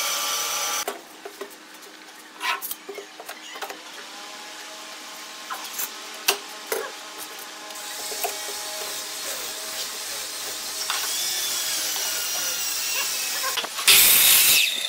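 Steel bar clamps knocking and clacking against wooden slabs as they are set and tightened, a few separate knocks. Near the end comes a brief, loud cut from a Ryobi sliding miter saw going through a pine board.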